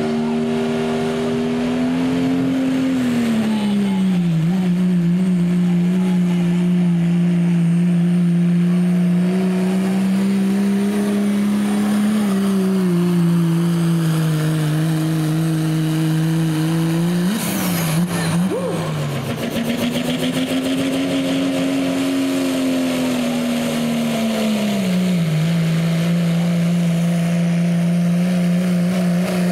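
Diesel pickup trucks at full throttle dragging a weighted pulling sled, one after the other. Each engine holds a steady high-revving note that sags in pitch a few times and recovers. There is an abrupt switch from the first truck's run to the second truck's about halfway through.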